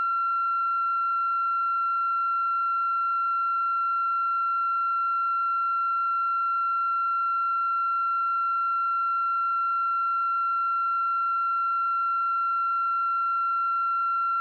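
A continuous electronic tone held at one fairly high pitch, with fainter overtones above it, unchanging in pitch and loudness.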